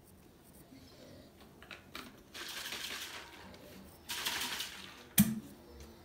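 Liquid poured into a plastic shaker bottle in two short pours, each a steady hiss lasting about a second. A sharp plastic click follows about five seconds in as the shaker lid snaps shut.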